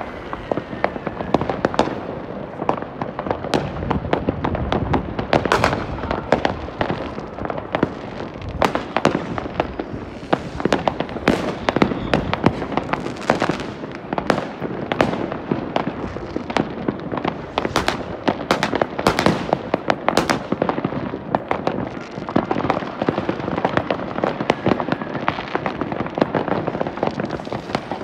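Many fireworks going off at once across a town: dense, continuous crackling and popping of rockets and firecrackers near and far, with louder sharp bangs standing out several times a second.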